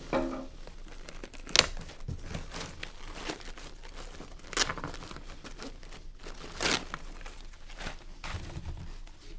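Styrofoam packing and foam wrap being pulled out of a cardboard box. It makes continuous crinkling and rustling, with a few sharp cracks, the loudest about a second and a half in.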